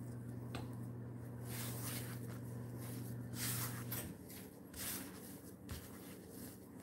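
Hands pressing and gathering soft, floury biscuit dough on a wooden board: several faint brushing swishes. A low steady hum underneath stops about four seconds in.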